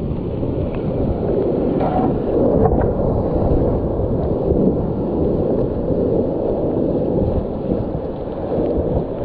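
Whitewater rapids rushing around a kayak, heard close up as a loud, steady, low roar. A few faint clicks sound about two seconds in.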